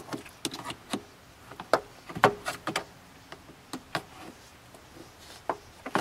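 Irregular sharp clicks and knocks from a pry bar working under the plastic door sill trim of a Toyota Tundra as the trim's retaining clips are levered loose.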